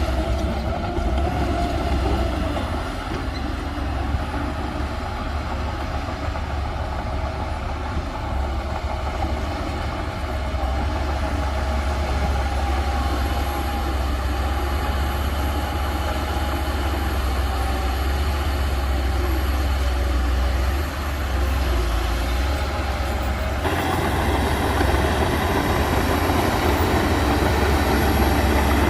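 Heavy earthmoving machinery working, a steady, loud, low engine drone. About 24 seconds in the sound suddenly turns fuller and grows louder.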